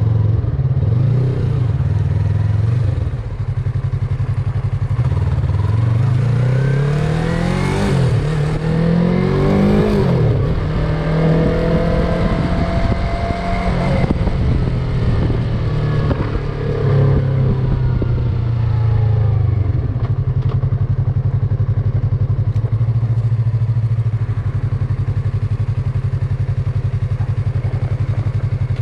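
Yamaha MT-03 motorcycle engine running under way, its pitch rising and falling several times between about six and fourteen seconds in as it is revved through acceleration and eased off, then running steadily.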